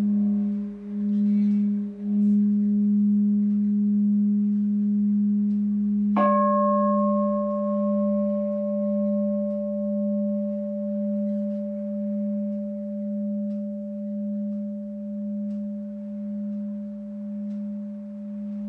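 Large singing bowl rubbed around the rim with a mallet, giving a low hum with a regular waver. It is struck once about six seconds in, which brings out higher ringing overtones, and is then left to ring and slowly fade.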